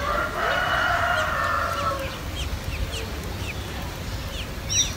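Nestlings begging at the nest as the adult bird feeds them: a harsh, chattering chorus for about two seconds, then short falling cheeps about three a second.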